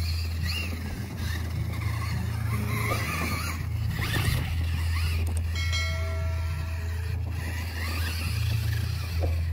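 Axial Son-uva Digger electric RC monster truck driving over grass, its motor whine rising and falling with the throttle over a steady low rumble. A brief held tone sounds about six seconds in.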